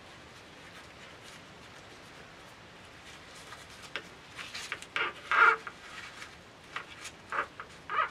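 Dry, papery onion skins rustling and crackling as onions are handled and worked onto a hanging onion string. A few short bursts come in the second half, the loudest about five seconds in.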